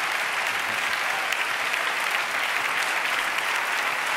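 Large audience applauding steadily, dense clapping with no break.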